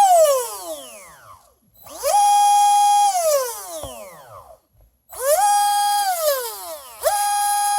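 4074-size 2150 kV brushless motor on a 6S LiPo revved in short throttle blips. It winds down at first, then spins up three times: each time it climbs quickly to a steady high whine, holds it for about a second, and coasts down in a long falling whine.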